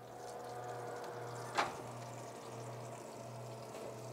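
Bacon-topped meatloaf sizzling in its sheet pan as it comes out of the hot oven, a steady hiss over a low hum. A single sharp clink of metal comes about one and a half seconds in.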